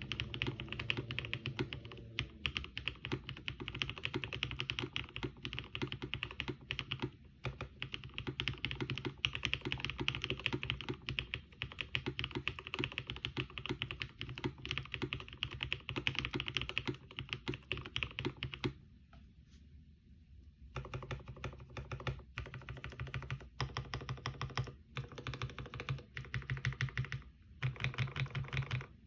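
Typing on a Kyuu mechanical keyboard with Black Cherry Pie linear switches (Cherry tops, cream stems, black bottoms), an aluminium plate and CRP keycaps: fast, continuous keystroke clacks, with a pause of about two seconds roughly two-thirds of the way through.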